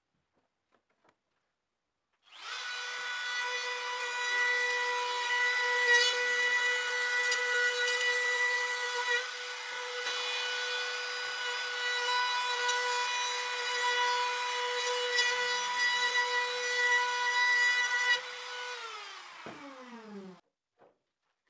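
An electric power tool working wood, running at a steady high pitch for about sixteen seconds, then switched off and winding down with a falling whine.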